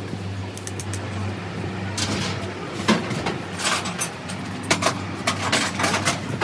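A series of short metallic knocks and clicks from work on the hydraulic pump's parts, most of them in the second half, over a steady low hum.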